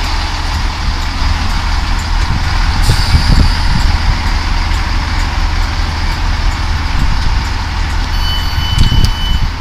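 British Rail Class 165 diesel multiple unit drawing to a stop at the platform, its underfloor diesel engine running steadily. A brief hiss comes about three seconds in, and a steady electronic door-alert tone starts near the end as the doors are released.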